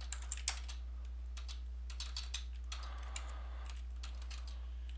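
Typing on a computer keyboard: scattered, irregular keystroke clicks over a steady low electrical hum.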